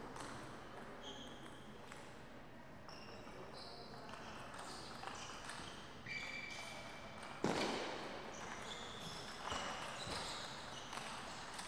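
Table tennis ball bouncing and being hit: scattered short, pitched pinging taps, with one sharper, louder knock about seven and a half seconds in.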